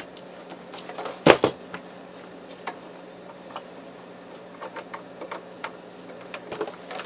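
Hard plastic clicks and knocks as an inkjet printer's casing is handled with a screwdriver: a pair of sharp knocks about a second in, then scattered light taps and clicks.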